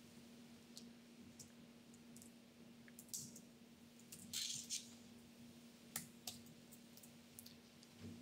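Faint, irregular key clicks of a MacBook keyboard being typed on, with a couple of quicker runs of keystrokes in the middle, over a faint steady hum.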